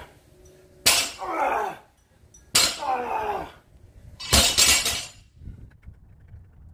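A weightlifter gives two loud, strained grunts of effort, about a second and a half apart, while lifting a loaded barbell. About four seconds in, the barbell with its rubber bumper plates is dropped onto the concrete floor with a heavy crash.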